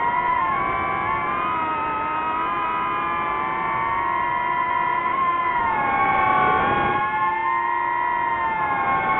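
DJI FPV quadcopter's motors and propellers whining, several pitches sliding up and down on their own as the throttle changes, with a dip and swell about two-thirds of the way through during a manoeuvre.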